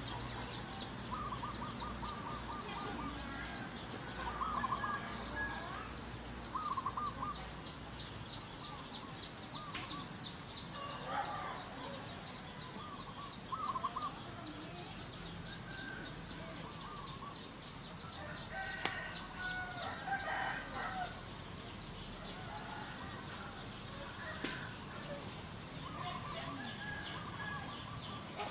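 Domestic chickens calling, with a rooster crowing about two-thirds of the way in among scattered shorter calls. A steady, fast, high-pitched ticking runs underneath.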